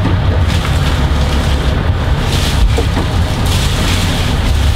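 A boat's engine running steadily under way, with wind buffeting the microphone and brief gusts of louder hiss about halfway through and again near the end.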